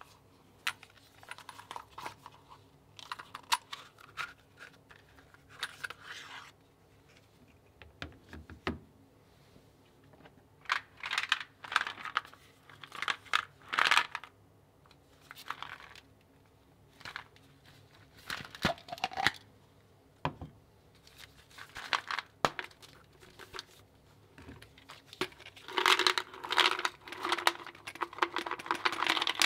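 Close handling of plastic: a hinged plastic case clicking open and shut and packaging rustling and tearing, then near the end a dense clattering rattle as small bath-salt tablets are poured from a plastic bottle into the plastic case.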